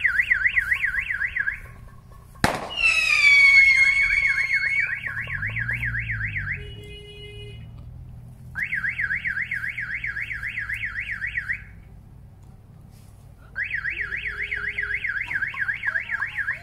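Electronic bird scarer sounding a fast warbling siren in repeated bursts of a few seconds with short gaps. About two and a half seconds in there is one sharp bang, followed by a loud shriek that falls in pitch.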